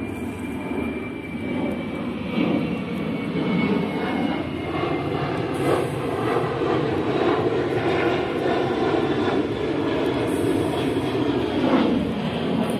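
Steady low engine drone, its pitch sagging slightly near the end.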